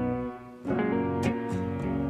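Instrumental background music with held chords; it drops away briefly and a new chord comes in about half a second in.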